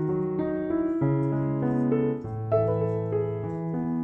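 Background piano music: a melody of notes over held low notes that change about once a second.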